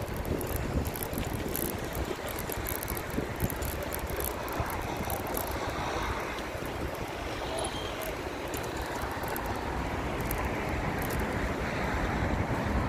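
Wind buffeting the microphone while riding an e-bike, a steady low rushing with road noise underneath and frequent light crackles in the first half.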